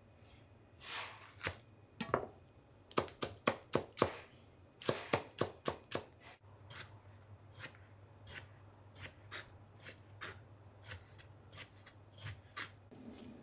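Kitchen knife slicing long green peppers and eggplant on a wooden cutting board: sharp taps of the blade on the board, a fast run of cuts in the first half, then slower, softer cuts.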